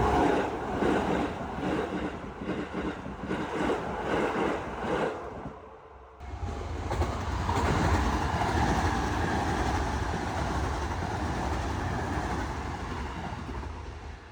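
A train passing over a level crossing, its wheels clacking rhythmically over the rail joints. About six seconds in, the sound cuts abruptly to a steady rumble that lasts to the end.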